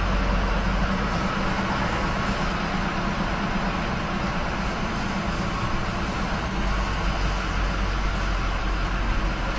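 Steady rushing noise of a vehicle on the move, with a low rumble that thins out between about one and six seconds in.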